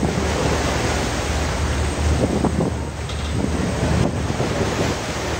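Seawater rushing and splashing along the hull of a large fishing boat under way, with wind buffeting the microphone and a steady low hum underneath.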